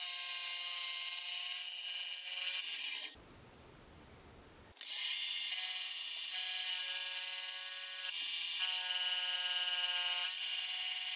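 Benchtop milling machine cutting an annealed steel block, a steady high whine with a hiss over it. The sound drops out for about a second and a half around three seconds in, then resumes.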